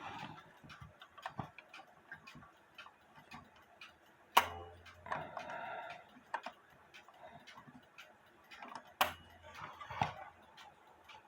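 Light, rapid, even ticking of a small spring-driven alarm clock movement with a hairspring (balance-wheel) escapement. There are two sharp knocks, about four seconds in and again about nine seconds in.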